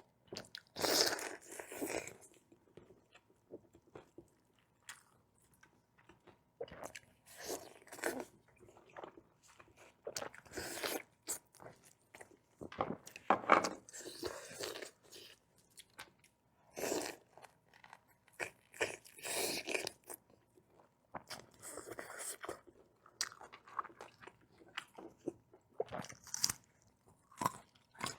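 A person eating, with crunching bites and chewing that come in bursts a second or two long and short pauses between them.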